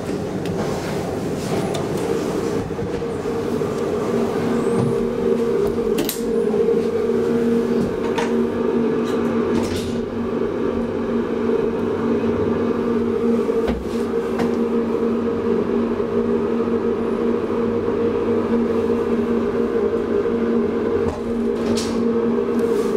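Deve (Schindler) hydraulic elevator travelling: a steady hum with two steady tones that sets in about two seconds in as the car gets under way, with a few light clicks and rattles along the way.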